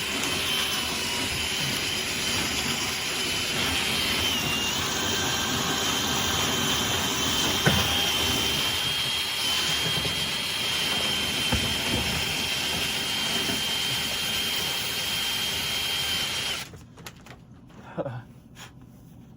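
Power drill running steadily with a high whine while spinning a rotary dryer-vent cleaning brush through the duct, cutting off about seventeen seconds in, followed by a faint knock.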